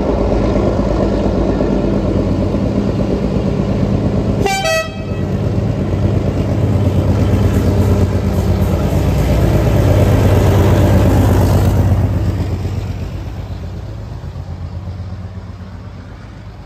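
Class 37 diesel locomotive running hard as it passes at close range, with a brief two-note horn toot about four and a half seconds in. From about twelve seconds the engine fades, leaving the train's wagons rolling by.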